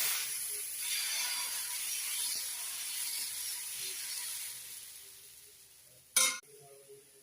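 Ragi and kambu (finger-millet and pearl-millet) dosa batter sizzling on a hot dosa griddle, a loud hiss that fades away over about five seconds. A brief sharp sound follows about six seconds in.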